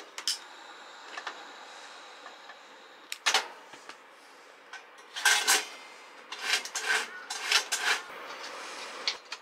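A round wick-type kerosene heater being lit by hand: a click, then a faint steady hiss for the first few seconds, followed by a knock and a run of sharp metallic clicks and clanks as the small burner-window door is worked open and shut.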